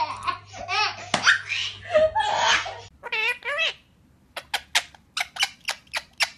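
A baby laughing for about three seconds. Then a white Indian ringneck parakeet gives one short call, followed by a quick run of sharp chirps, about five a second.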